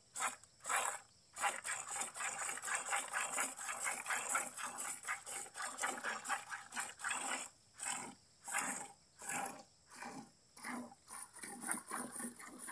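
A cow being milked by hand into a plastic bucket: squirts of milk hiss into the pail in a quick, steady rhythm of about two to three strokes a second.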